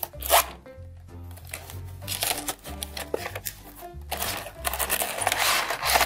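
Background music with a steady bass line over unboxing handling noise: a sharp click as the cardboard blind box is opened just after the start, then a clear plastic bag crinkling over the last two seconds.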